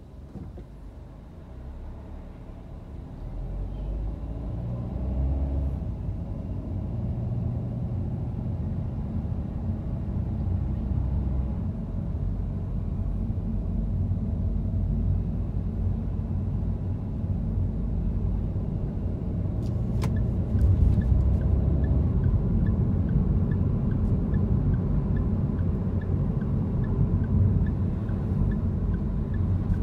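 Car driving on a city street: a low rumble of engine and road noise that builds over the first few seconds as the car picks up speed, then runs steadily. A click comes about two-thirds of the way in, followed by a faint, regular ticking.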